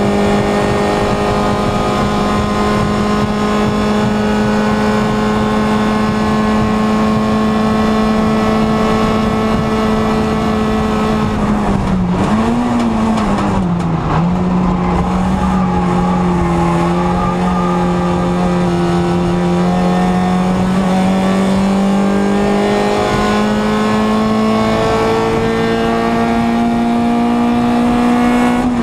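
Small racing car's engine heard from inside the cabin, held at high revs in a steady drone. About twelve seconds in, the revs dip and waver briefly through a bend, then climb slowly again and drop suddenly at the very end with a gear change.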